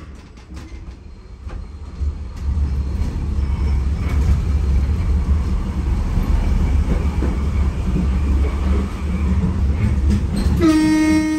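Berlin U-Bahn F-type train running on the rails, with clicks from the wheels at first and a low rumble that grows loud after about two seconds. Near the end the train's horn sounds one steady tone.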